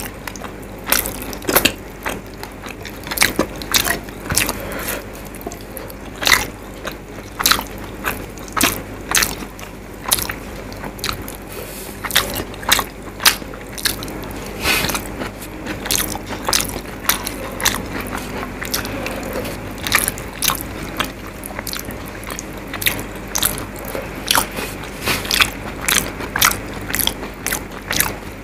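Close-miked chewing of handfuls of rice and fish curry, with wet lip smacks and sharp sticky mouth clicks coming several times a second.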